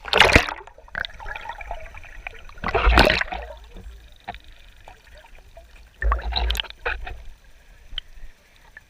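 Sea water splashing in three loud bursts, about three seconds apart, with quieter sloshing between them.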